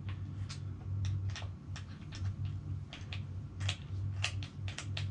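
Phillips screwdriver working the screws on a kayak seat frame to tighten them down: a run of sharp, irregular clicks, two or three a second, over a low steady hum.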